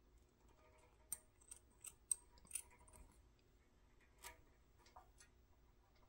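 A few soft, sharp clicks and snips from small scissors trimming string at the steel boom of a toy dragline crane, the loudest about two seconds in.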